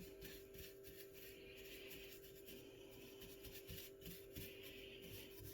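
Near silence: faint rubbing strokes over a steady low hum.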